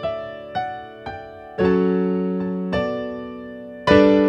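Slow piano music. A few single notes come first, then full chords that ring and fade away, the loudest one near the end.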